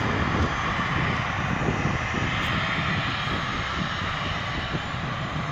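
Jet airliner engines running, heard across the airfield as a steady, even rush of engine noise that eases off slightly toward the end.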